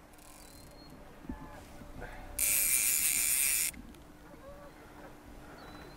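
Fly reel's click-and-pawl drag ratcheting in one fast, loud, high buzz lasting about a second and a half, a little over two seconds in, as line runs through the reel while a hooked rainbow trout is played.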